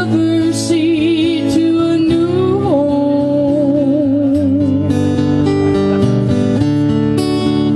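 Acoustic guitar strummed under a long held sung note with vibrato, which slides up and then drops about three seconds in.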